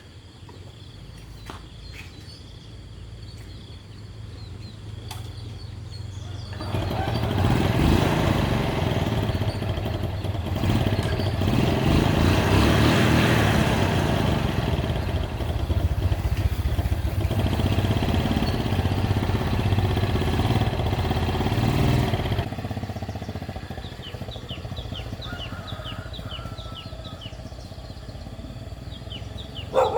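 Yamaha Sirius four-stroke single-cylinder motorcycle engine running. It builds over the first several seconds, is loud for about fifteen seconds, then falls back to a low running sound.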